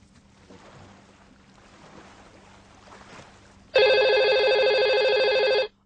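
Desk telephone ringing: one loud trilling ring about two seconds long, starting after a few seconds of faint room tone and cutting off abruptly.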